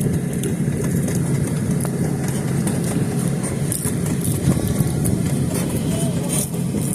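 Steady low rumble of a vehicle in motion, with light rattling over it.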